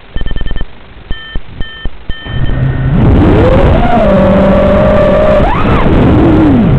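A run of short electronic beeps, then an FPV drone's electric motors spooling up about three seconds in to a loud, steady whine. The pitch shoots up briefly near the end, drops away and climbs again as the throttle changes.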